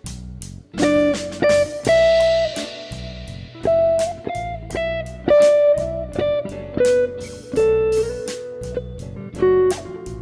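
Slow blues on electric guitar: a lead line of held single notes over a backing of a steady drum beat and bass.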